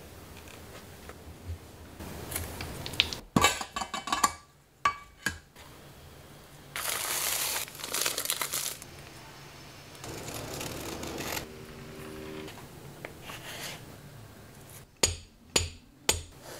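Hand shoemaking work in quick succession: scraping and knocking on a leather boot, a long rub with crinkling over plastic-wrapped cork filler on the boot's bottom, and near the end three sharp taps of a shoemaker's hammer on the sole.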